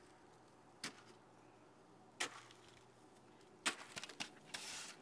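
Snow shovel scooping and scraping packed snow: single short swishes roughly every second and a half, then a quicker run of strokes and a longer scrape near the end.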